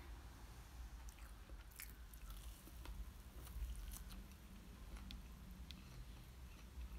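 Faint mouth sounds of a person biting into and chewing a soft oliebol, a fried Dutch doughnut ball with raisins: scattered small clicks and squishes.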